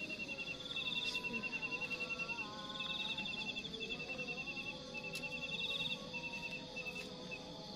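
Crickets chirping in rapid pulsed trills at two pitches: a lower one in runs broken every second or so, and a higher one that swells in about every two and a half seconds. A few faint clicks of spoons.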